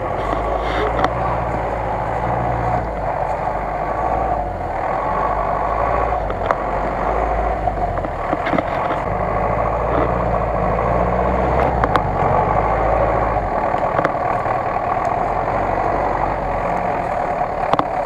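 GAZ-66 four-wheel-drive truck's engine running steadily under load as the truck crawls through deep mud. A few brief sharp knocks are scattered through, and the low rumble eases a little about three-quarters of the way through.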